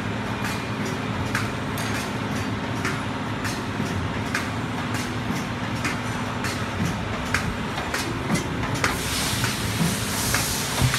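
Pyramid tea bag packing machine running: a steady mechanical hum with regular clicks and clacks as it cycles. A higher hiss joins in near the end.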